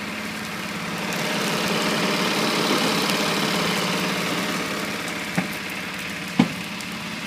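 Dry grass and scrub burning and crackling over the steady hum of an idling engine, with two sharp pops near the end, a second apart.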